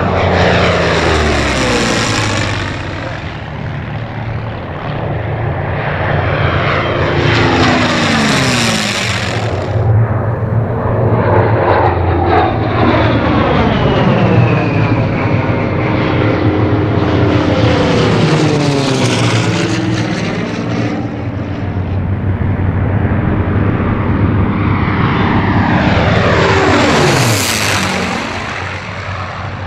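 WWII piston-engine fighters (P-40 Warhawk, P-38 Lightning, P-51 Mustangs) making low passes. Their V-12 engines swell as each plane comes in and drop in pitch as it goes by, four passes in all.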